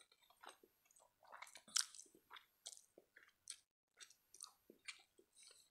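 Faint, close-miked chewing of a mouthful of spaghetti: soft, irregular wet mouth clicks and smacks.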